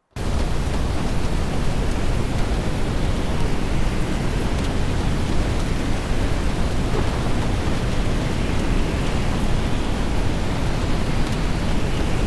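Strong wind blowing across the microphone: a steady, loud rushing noise with constant low buffeting. It cuts in abruptly.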